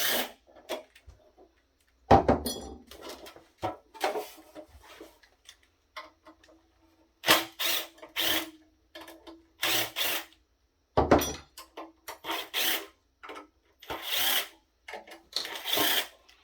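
Power drill driving screws out of a metal equipment case in short stop-start bursts, a steady motor whine in some of them, with clicks and rattles between bursts.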